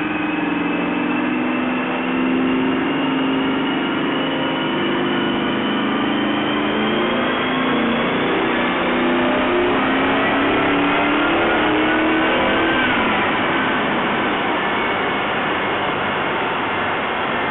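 Ford V8 swapped into a Mazda Miata, running a pull on a chassis dyno: the engine and a high whine climb steadily in pitch for about ten seconds, then fall away about thirteen seconds in as the run winds down.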